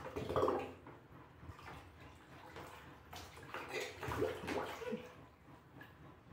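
A baby splashing and scooping water in a plastic bucket with its hands and a small steel bowl, in irregular bursts, loudest just after the start and again around the fourth second.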